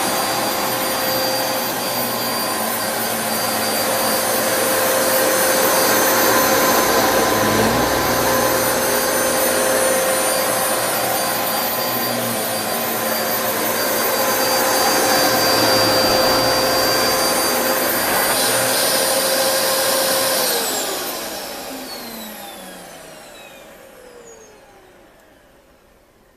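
Dyson DC07 Animal upright vacuum cleaner running with a steady whine that swells and eases a little, then switched off about twenty seconds in; the motor winds down, its pitch falling as it fades out.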